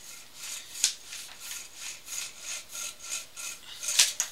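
Sewer inspection camera's push cable being drawn back out of the pipe, making a quick run of rubbing strokes, about three a second. There is a louder scrape a little under a second in and again near the end.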